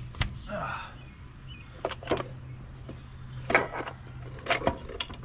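Scattered metal clinks and knocks of a 727 automatic transmission's internal parts being handled and pulled out of the case during teardown, a few sharp knocks spread over several seconds.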